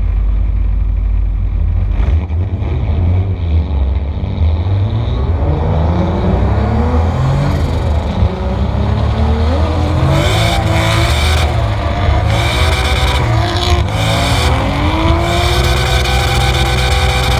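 Drift car engine, heard from onboard, revving up again and again through gear changes as it pulls away. From about ten seconds in, tyre screech joins it as the car slides into the drift.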